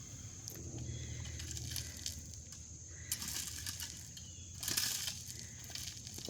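Distant thunder rumbling low under a steady trill of insects, with two short crunches about three and five seconds in.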